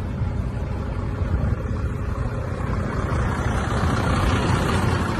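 Steady road and engine noise heard from inside a moving car, a low rumble with tyre hiss that swells slightly about four seconds in as the car draws alongside a tow truck.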